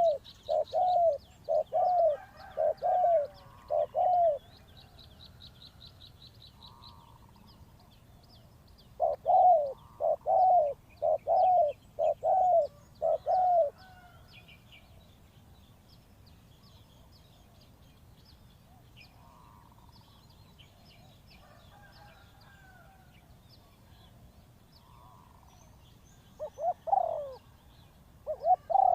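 Spotted dove cooing in three bouts of about six evenly spaced coos each, the last bout near the end shorter. A small bird's fast, high trill sounds at the start and again a few seconds in.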